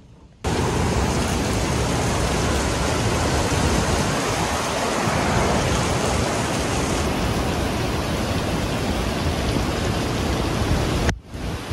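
Hurricane-force wind and heavy rain, a loud, steady rushing noise that starts abruptly about half a second in and dips briefly near the end.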